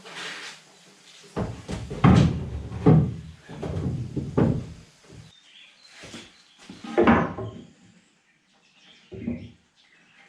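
A run of heavy knocks and thuds in the first half, like a box or panel being handled and bumped into place, then two more spaced out near the end.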